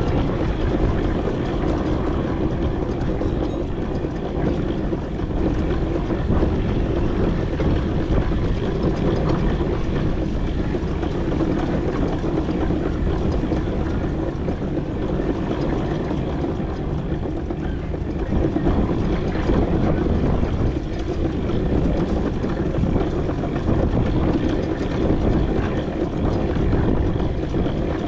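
A 4-inch scale McLaren steam traction engine running steadily on the move, with a continuous low rumble.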